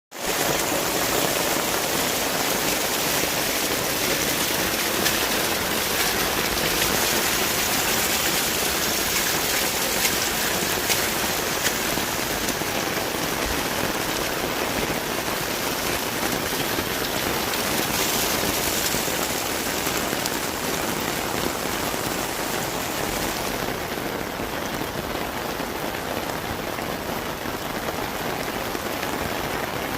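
Heavy rain pouring steadily onto surfaces, a dense, even hiss that turns a little softer in the last few seconds.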